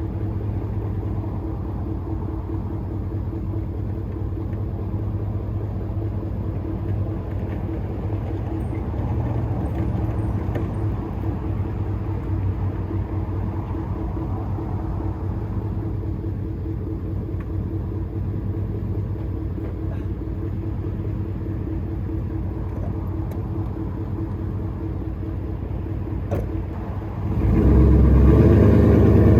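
A vehicle's engine running steadily. About 27 seconds in, the sound abruptly gets louder and deeper.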